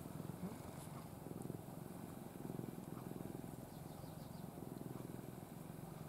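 A domestic cat purring, a faint low rumble that swells and eases with each breath, from a relaxed cat held in a person's arms.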